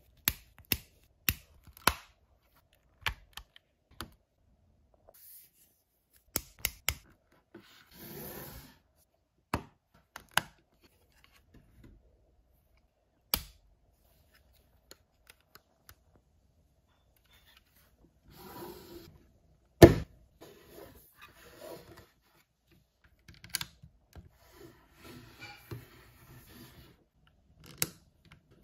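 Hands unboxing toys: scattered sharp clicks and taps of plastic and packaging, with short rustling stretches and one louder knock about twenty seconds in.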